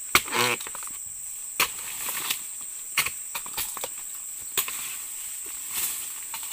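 Oil palm fronds being chopped with a dodos, a steel chisel on a long ulin-wood pole: sharp cutting strikes about every second and a half, the first the loudest. A steady high insect drone runs underneath.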